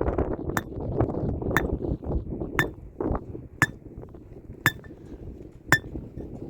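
Hard, ringing clinks struck at a steady pace of about one a second, like a tool striking metal, each with a short ringing tone. For the first three seconds or so they sit over a rough scraping or rustling noise.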